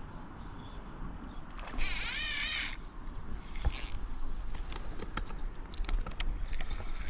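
Fishing reel being cranked: a whirring burst of about a second, then a shorter one, followed by scattered light clicks.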